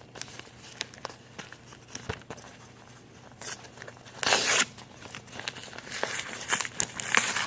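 A parcel being opened by hand: crinkling and small clicks, with a louder tear lasting about half a second a little over four seconds in, then more crinkling near the end.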